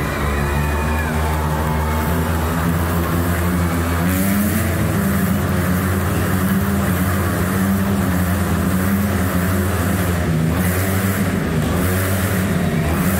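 Motorcycle engines revving as the bikes circle inside a steel-mesh globe of death, their pitch rising and falling continuously.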